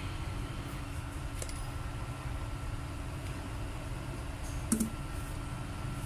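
Steady low background rumble with a faint high whine, and a few small sharp clicks, the loudest about three-quarters of the way in, as metal tweezers are picked up off a work mat.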